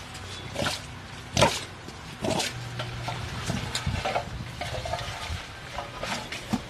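Muddy water sloshing and splashing in a shallow ditch as it is scooped out with a steel bowl and weeds are pulled from it by hand, with irregular knocks and splashes, the loudest about a second and a half in.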